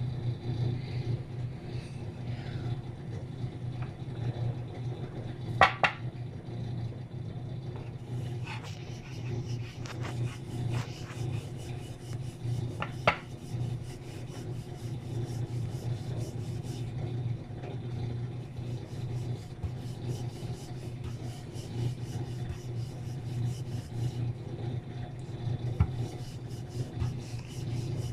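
Wooden rolling pin rolling out a stuffed potato paratha on a wooden board: a repeated rubbing, rasping sound. There are two sharp knocks, about six and thirteen seconds in, over a steady low hum.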